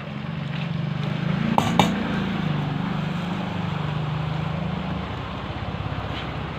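A motor vehicle engine running nearby, its low hum rising and falling as it passes. Two sharp clicks come about a second and a half in.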